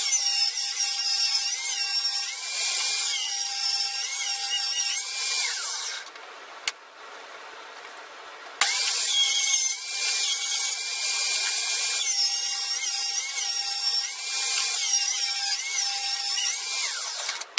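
Table saw cutting a rebate along a pallet board in two passes, a high whine that wavers as the blade takes the wood. It stops about six seconds in and starts again about two and a half seconds later for the second cut.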